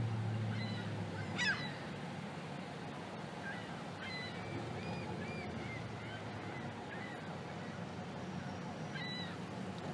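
A flock of gulls calling: scattered short, high calls, the loudest about a second and a half in, over steady background noise, with a low engine hum fading out in the first second.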